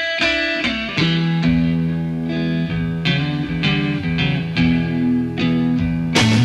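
Rock music led by guitar, with plucked notes and chords struck about once a second over sustained bass notes.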